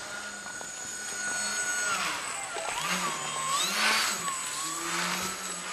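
Electric motor and propeller of a small foam RC biplane whirring: a steady whine that, about two seconds in, turns into revs that dip and rise again and swell three times as the throttle is worked.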